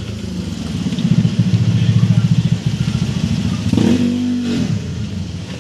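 A small engine, likely a motorcycle's, running steadily with a fast pulsing beat. It rises in pitch and falls back once about four seconds in.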